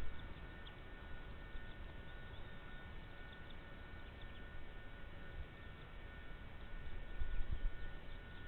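Steady electrical hum made of several fixed tones over a low rumble, with faint short high ticks scattered through it.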